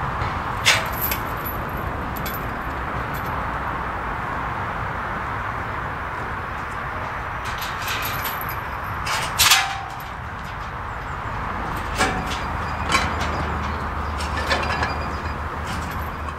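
Level-crossing gates being swung open by hand, giving several sharp metal clanks from the gate fittings over a steady rushing background noise. A low engine hum comes in about three-quarters of the way through.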